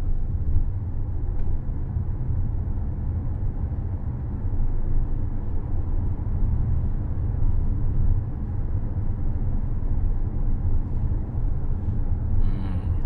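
Steady low road rumble inside the cabin of a new Toyota Harrier SUV on the move, the muted running noise of a well-insulated car.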